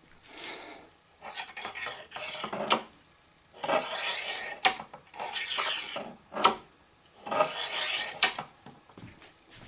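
Hard objects scraped or rubbed together in repeated strokes, about six in all, with a sharp click roughly every two seconds.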